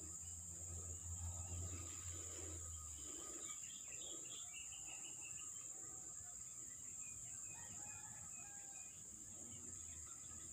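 Faint outdoor ambience: small birds chirping now and then over a steady high insect drone.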